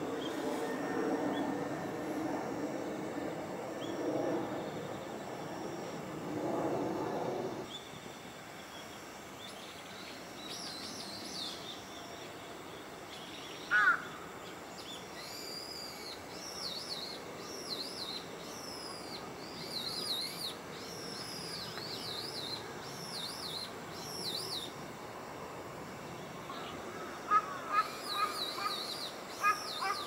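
Wild birds calling: quick runs of high chirping notes through the middle, with a few louder, sharper calls near the middle and toward the end, over a low murmur in the first few seconds.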